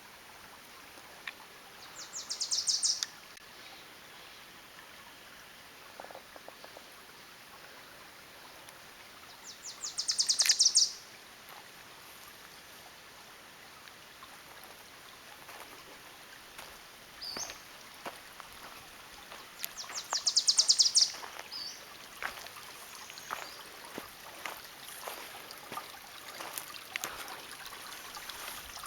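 A songbird singing three loud, high, fast trills about ten seconds apart, each lasting about a second, over the steady hiss of a running creek. In the last third, scattered short clicks and trickles of water grow more frequent.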